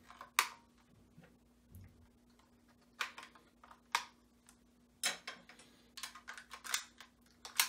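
Sharp plastic clicks and rattles from handling the Max Ryusoul Changer toy while fresh batteries go into its battery compartment and the cover snaps shut. There are single clicks about half a second in and around three and four seconds, then a quicker run of clicks near the end.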